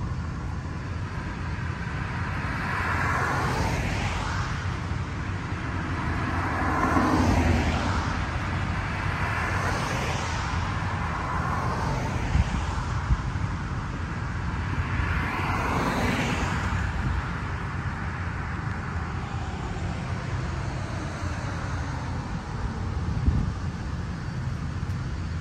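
Road traffic: cars passing one after another on a multi-lane road, each swelling and fading away, about five passes over a steady low rumble.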